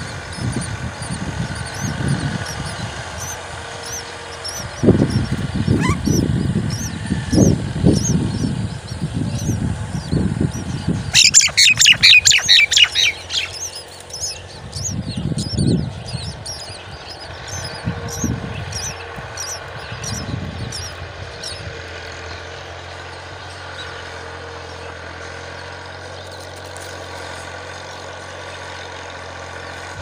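Myna nestlings begging with thin, high, rapid chirps, loudest in a burst about eleven to thirteen seconds in, with fainter chirps before it. Repeated low muffled sounds come through the first two-thirds.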